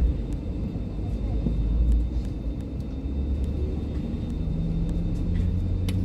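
Steady low rumble inside an Airbus A320's cabin on the ground, with scattered faint clicks. A low hum grows through the second half.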